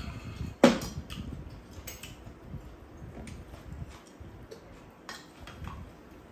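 Spoon and chopsticks clicking against bowls while two people eat bibimbap. There is a scatter of small ticks and one loud clink about a second in.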